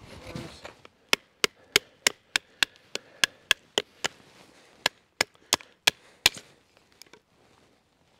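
A wooden baton knocking repeatedly on the spine of a knife, driving it down through an upright stick of wood to split it (batoning). About sixteen sharp knocks, roughly three a second, with a short pause midway, stopping about six seconds in.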